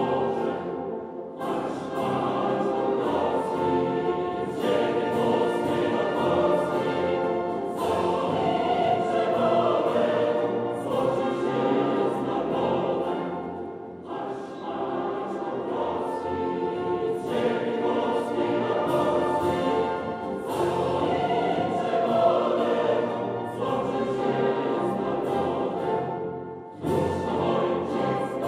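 A choir singing with orchestral accompaniment, an anthem, with short breaks between phrases.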